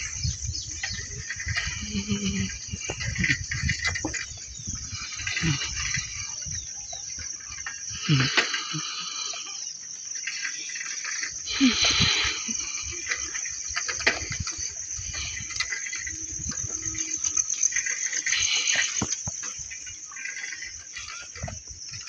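Insects chirring steadily at a high pitch in a rural outdoor setting, over low rumbling bumps from a camera carried along a path. Two brief louder sounds come near the middle.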